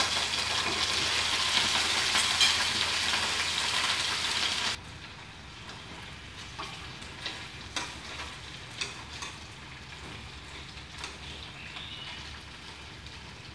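Marinated chicken wing pieces sizzling in hot oil in a nonstick frying pan. The sizzle is loud at first, drops suddenly to a quieter hiss about five seconds in, and is dotted with light clicks of chopsticks against the pan.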